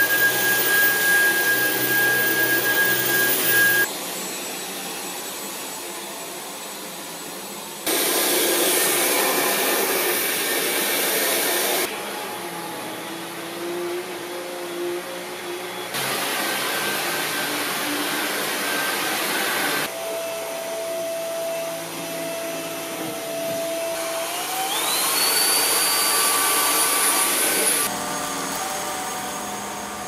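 Cordless stick vacuums (Dyson V11 Outsize, Samsung Bespoke Jet, Shark Stratos) running on carpet, one after another, switched between power modes about every four seconds, so the steady motor-and-airflow rush alternates between louder and quieter. Some settings carry a steady motor whine, and about 25 seconds in one spins up with a rising whine.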